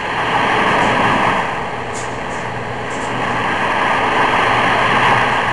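Boat under way at sea: a steady rush of water and wind with a low engine rumble underneath, swelling and easing twice.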